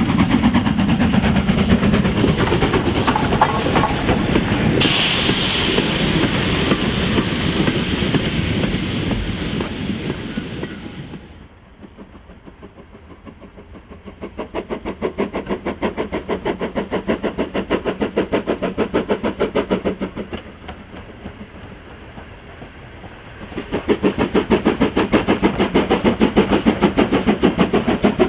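Steam locomotives working hard with freight trains, their exhaust beating in a steady rhythm. The first is loud and close, with a burst of steam hiss about five seconds in. It gives way to a fainter, more distant train in the middle. Loud close exhaust beats return near the end.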